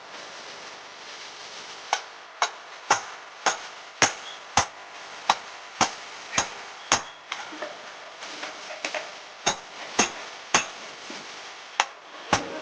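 Blacksmith's hammer striking iron on an anvil in forging, sharp ringing blows about two a second, starting about two seconds in.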